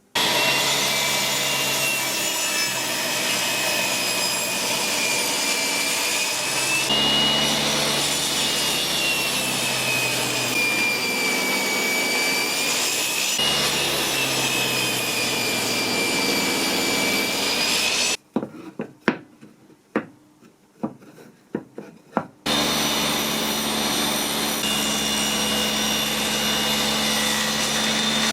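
Electric power tool running on wood: a steady motor whine that wavers in pitch over loud rasping noise. It stops abruptly about eighteen seconds in, a few sharp knocks of wood follow, then the tool runs again for the last six seconds.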